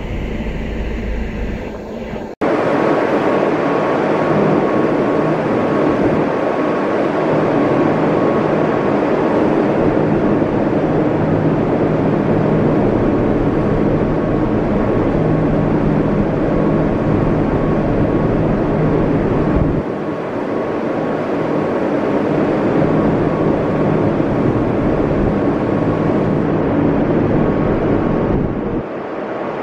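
A passenger ferry under way: the steady rush and rumble of the ship and the sea, with a faint steady whine running through it. The sound changes abruptly at edits about two seconds in and again near the end.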